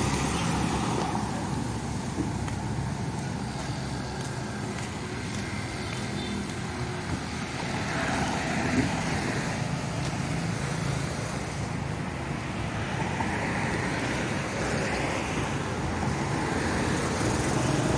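Road traffic: motorbikes and cars going by, a steady hum that swells as vehicles pass around the middle and again a little later.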